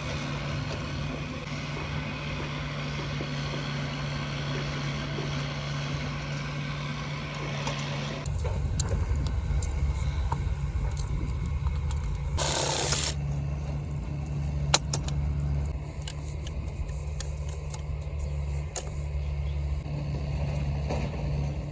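Compact excavator's diesel engine running steadily, its low rumble growing louder and deeper about eight seconds in. A short hiss comes about halfway through, and light clicks and knocks are scattered over the second half.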